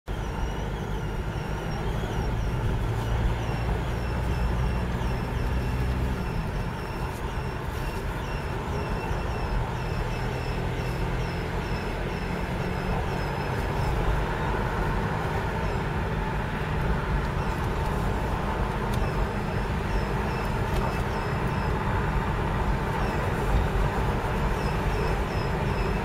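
Short squeaking chirps repeating about twice a second over the diesel running and tyre rumble of a 2004 VW Passat 1.9 TDI PD rolling slowly, heard through open windows. The chirps stop for a few seconds midway and then return. This squeak comes only with the engine cold and the car rolling, and was traced to a cracked exhaust flex pipe next to the catalytic converter, with exhaust gases whistling through the crack.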